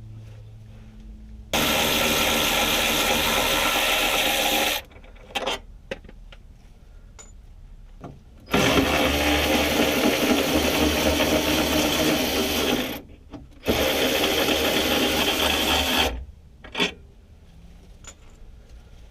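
A handheld power tool running in three long bursts of several seconds each, with a few short clicks between them.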